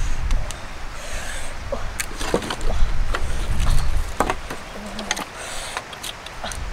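Dry wooden sticks being handled and snapped for firewood: a scattered series of sharp cracks and knocks, over a low rumble.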